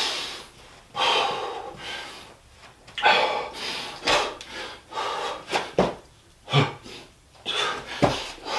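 A man breathing hard from burpees, loud breaths in and out about once a second. Near the end there is a thud as he drops toward the floor for the next rep.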